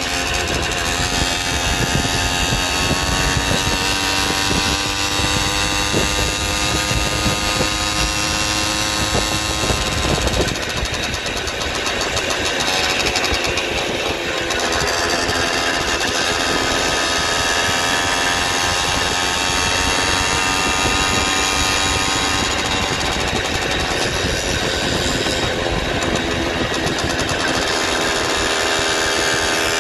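Small engine of a motorized bicycle running under way, with wind rushing over the microphone. The engine note eases about ten seconds in, then picks up again.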